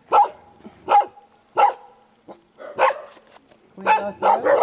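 Dogs barking at the walkers: single sharp barks about a second apart, then several in quick succession near the end.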